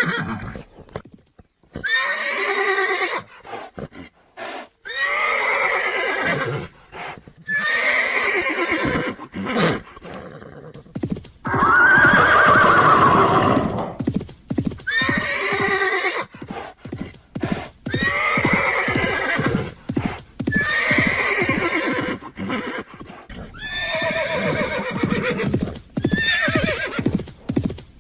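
Horses neighing and whinnying, one quavering call after another every couple of seconds, the longest and loudest about halfway through, with hooves clopping between the calls.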